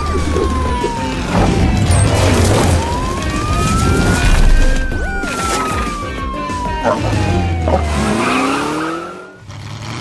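Cartoon police car siren wailing, gliding slowly up and down in pitch, with a vehicle engine rumbling underneath and background music. The siren and engine stop about nine seconds in.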